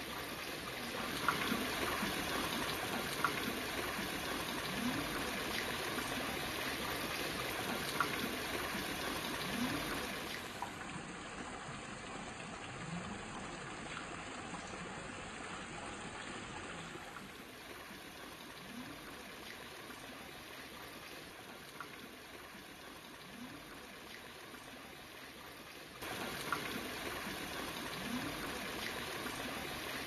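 Steady trickling and running water in a garden pond, with occasional small gurgles; it grows quieter for a stretch in the middle.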